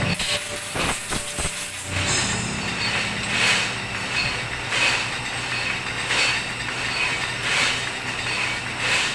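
Metalworking machine running on steel, with a steady low hum and a rhythmic metallic scrape about every 0.7 seconds.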